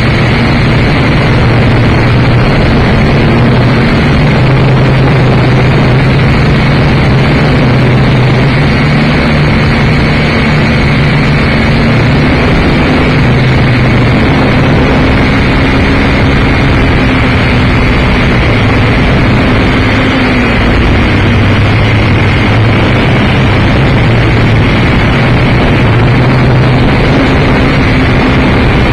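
Motor and propeller of a radio-controlled model aircraft heard close up from its onboard camera: a loud, steady drone with a held high whine over rushing wind noise.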